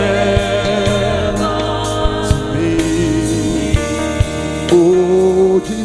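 Live gospel worship music: voices holding long sung notes over band accompaniment, with a few drum hits.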